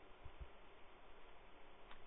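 Near silence: a faint steady hiss of recording noise.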